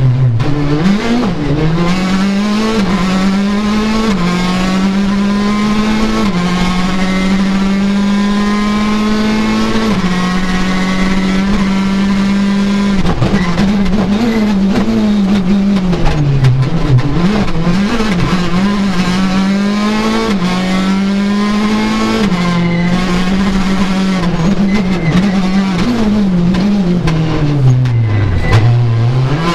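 Citroën DS 3 R5 rally car's turbocharged 1.6-litre four-cylinder engine at full throttle, heard loud inside the cabin. It climbs through the gears, holds high and steady on the straights, and drops sharply with braking and downshifts about a second in, midway and near the end.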